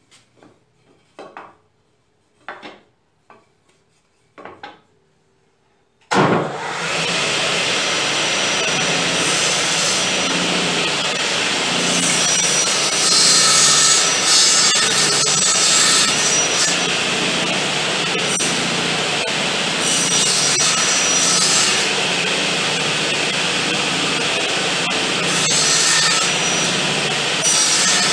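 A few light knocks of wooden pieces handled on a metal saw table, then, about six seconds in, a table-mounted circular saw starts up suddenly and runs, its sound swelling in stretches as the wood is pushed through the blade in repeated passes to cut a half-lap joint.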